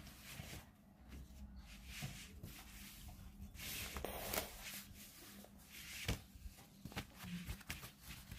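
Quiet rustling and small clicks of a cross-stitch canvas and its packaging being handled and folded away.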